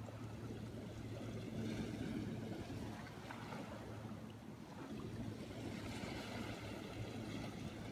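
Small waves washing on a sandy shore, with a steady low hum underneath.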